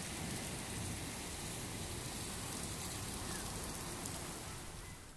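Steady rain falling, an even hiss with no thunder, easing slightly near the end.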